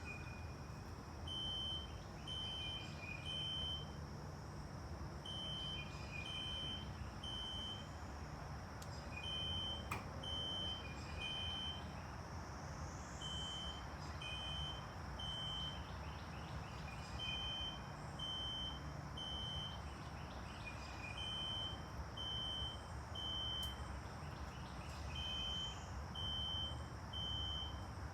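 Fire alarm sound of a System Sensor SpectrAlert Classic horn (filtered DC), played through a tablet's speaker as its alarm-clock tone. It sounds in the temporal-three evacuation pattern: three short high beeps, then a pause, repeating about every four seconds.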